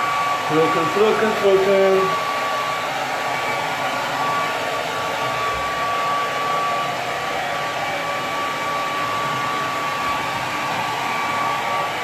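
Handheld hair dryer running steadily, blowing air over a wet dog's coat: an even rushing blow with a constant whine at one pitch.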